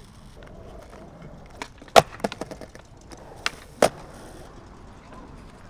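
Skateboard on concrete: a few sharp wooden clacks of the deck and wheels hitting the ground, the loudest about two seconds in, followed by two more a little before four seconds in.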